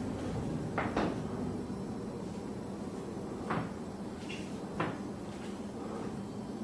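A few short, sharp knocks or clacks over a steady hiss and low hum: two close together about a second in, then one about halfway through and one near the end.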